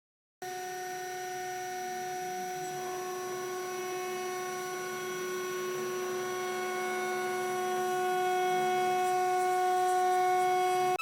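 Spindle of a homemade PrintNC CNC mill whining steadily while milling aluminum: a high, even tone with several overtones. It cuts in abruptly just after the start, a higher tone joins a few seconds in, and it grows slightly louder towards the end.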